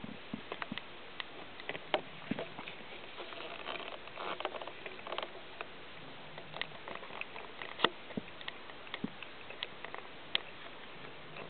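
Soft rustling of a blanket with scattered small clicks as a Somali kitten shifts and squirms on it; a few sharper clicks stand out, the loudest about eight seconds in.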